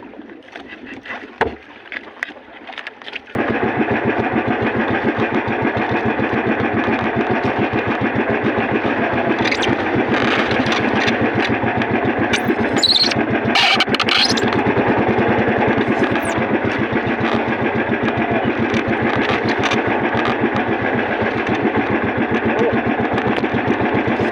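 Small boat engine starting about three seconds in, then running steadily with a fast, even beat.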